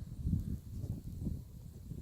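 Footsteps walking through fresh snow, about two dull steps a second.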